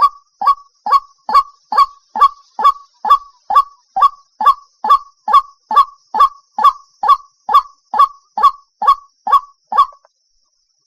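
White-breasted waterhen calling: a long, regular series of short, loud notes at about two a second, stopping near the end.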